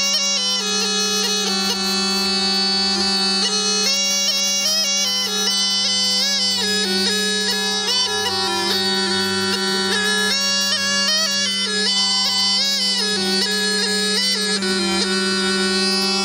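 Music: a reedy wind instrument plays a winding, ornamented melody over a continuous low drone.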